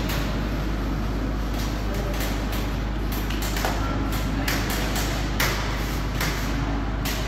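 Busy kitchen background: a steady low rumble with frequent short clicks and knocks, and faint voices.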